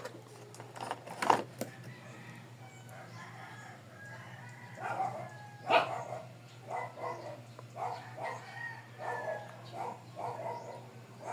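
A dog barking repeatedly, in short barks a little under two a second through the second half, over a steady low hum, with two sharp clicks earlier on.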